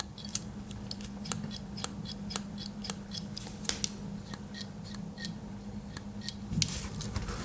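Pliers of a Victorinox Angler Swiss Army knife being worked open and shut, a quick irregular series of light metal clicks, about three a second.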